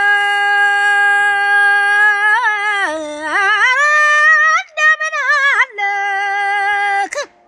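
A woman singing solo and unaccompanied in Ethiopian style: a long held note, then melismatic runs that bend and waver up and down, then the held note again, which breaks off suddenly near the end.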